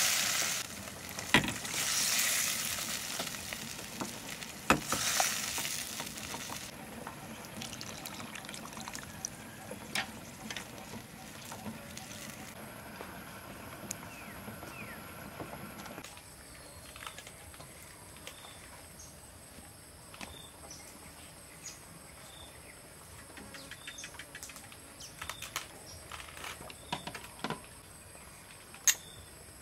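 Broth in a hot pot being stirred and ladled, with splashing and pouring in the first few seconds, then a quieter stretch with scattered light clicks of utensils and dishes. In the second half a faint steady high tone and a soft chirp about once a second.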